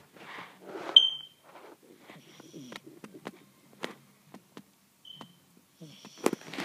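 Sleeping chihuahua's snoring breaths. About a second in comes a short, sharp, high beep, and a fainter one follows near five seconds, with scattered light clicks throughout.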